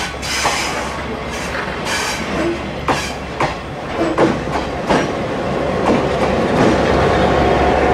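Passenger train coaches rolling past close by, their wheels clicking over the rail joints at uneven intervals. Over the last couple of seconds the diesel locomotive comes alongside and the rumble grows louder and steadier.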